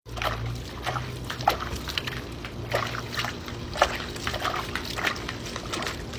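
German Shepherd puppy with its muzzle in a bucket of ice water, sloshing the water and knocking at the floating ice cubes: irregular sharp clicks and clacks, several a second, over splashing water.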